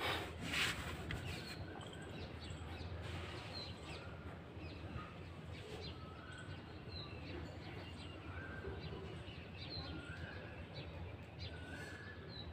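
Birds chirping in short, scattered calls over a steady low background rumble, with a brief rustle about half a second in.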